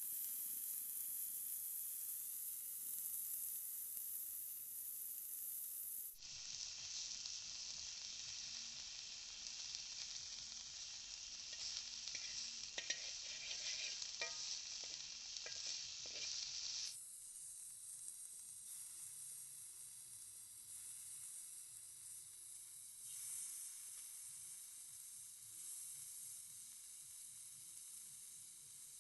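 Food sizzling as it fries in a pan, a steady high hiss that changes abruptly twice, with a few light clicks near the middle.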